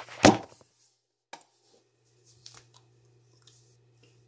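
Handling noise of a phone being set in place to record: a loud bump about a quarter of a second in, then a few faint taps and clicks, with a faint steady low hum from about a second and a half on.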